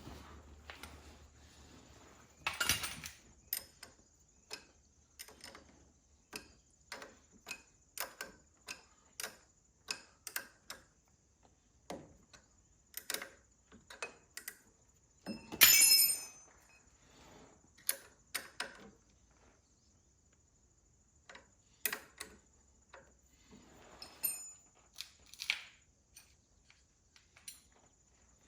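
Hand tools working on metal as a tractor starter is bolted on: a series of separate sharp clicks and clinks, about one or two a second, with louder metallic clanks about 3 seconds in and again near the middle.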